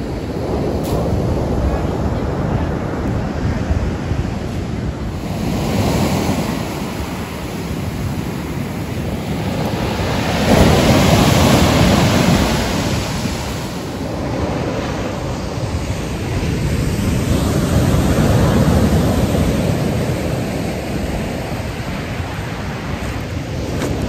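Sea waves breaking on a pebble beach, the surf swelling and fading in surges, loudest about halfway through, with wind buffeting the microphone.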